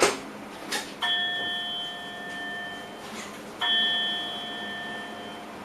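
A bell-like chime in a train driver's cab rings twice, about two and a half seconds apart, each ring holding for about two seconds and fading. A couple of sharp clicks come just before it.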